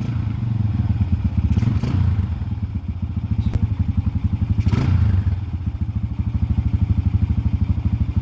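Yamaha XT 350 single-cylinder four-stroke engine running with a steady, even beat after a carburettor swap, swelling twice as the throttle is opened briefly.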